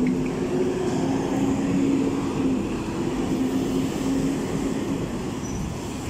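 A large motor vehicle passing on the road, its engine giving a steady low hum over a broad rumble. It builds to its loudest around two seconds in and eases off toward the end.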